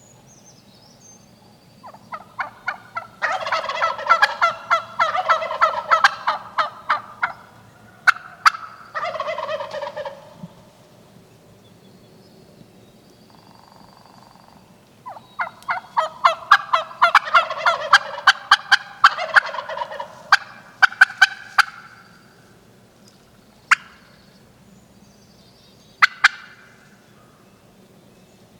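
Turkey calling: two long runs of rapid, loud notes lasting several seconds each, followed by a couple of single sharp notes.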